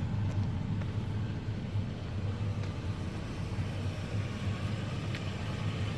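Motor vehicle running with a steady low rumble and a few faint clicks.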